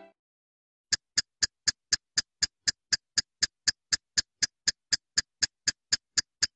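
Cartoon clock ticking sound effect: quick, even, sharp ticks about four a second, starting about a second in.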